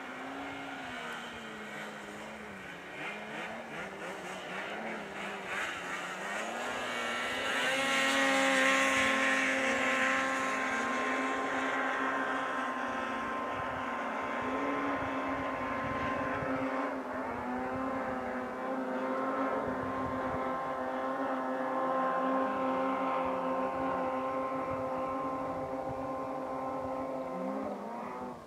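Yamaha Sidewinder M-TX turbo snowmobile engine working up a steep snow slope, heard from a distance. For the first several seconds the engine note wavers as the throttle is worked. It then holds at a steady high pitch under full load for most of the climb, with a brief dip about two-thirds of the way through. The note drops off at the very end.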